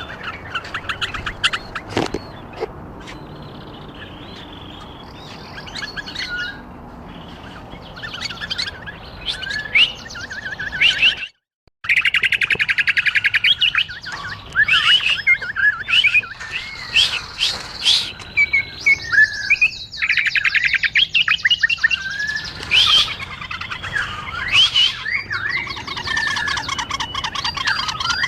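Bulbuls chirping and singing: a busy run of short whistled notes and quick pitch glides, breaking off completely for about half a second near the middle.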